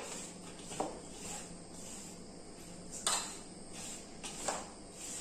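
Hands mixing and crumbling grated dry coconut with powdered sugar in a stainless steel bowl: a soft, faint rustling, with a few light clicks.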